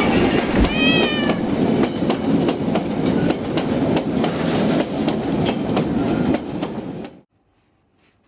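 A train passing close by, its wheels clattering over the rail joints, with a brief wavering high squeal about a second in and thin high squeals near the end. The sound cuts off abruptly about seven seconds in.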